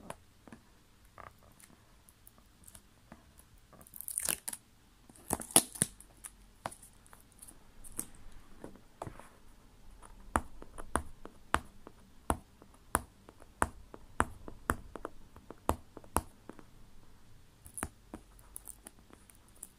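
The seal of a new phone box being picked at and torn off by hand: two loud tearing rips about four and five and a half seconds in, then a long run of sharp clicks and taps as fingers work at the cardboard box.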